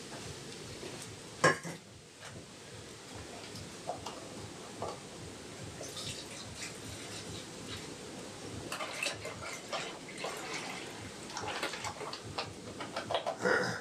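Kitchen handling noises: a sharp knock about a second and a half in, then scattered light clinks and taps with rustling of a paper packet, growing busier near the end.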